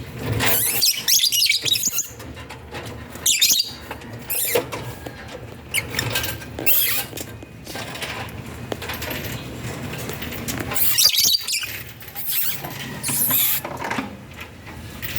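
African lovebirds calling in short, shrill bursts of chatter, several times over.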